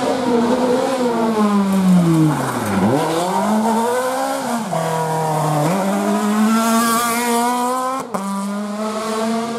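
Citroën C2 rally car taking a hairpin: the engine note drops steeply as it brakes in, then rises again as it accelerates out, stepping up through the gears and holding high as it pulls away. There is a single sharp crack a little after eight seconds in.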